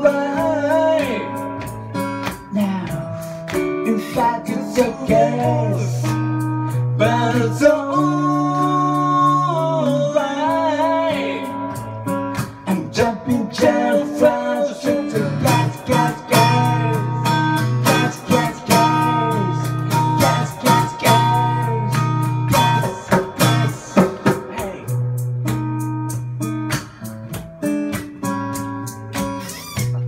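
Live acoustic guitar, strummed and picked, accompanying a singer, with long held low notes underneath.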